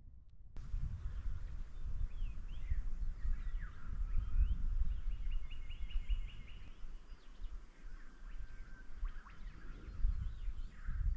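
Wild birds calling in the Australian bush in the morning: scattered chirps and sliding calls, a fast trill of repeated notes, and a held whistle, over a steady low rumble. The sound starts abruptly about half a second in.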